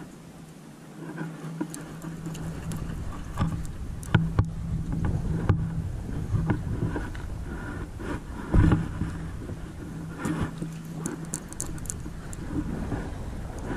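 Wind buffeting the microphone in gusts, strongest a little past the middle, over a steady low hum that fades in and out, with scattered light clicks and knocks.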